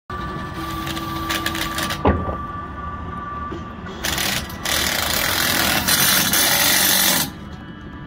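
Cordless impact driver hammering as it drives a threaded-rod scaffold tie anchor into a concrete masonry block wall. It runs in bursts, the longest about three seconds near the end, with a sharp knock about two seconds in.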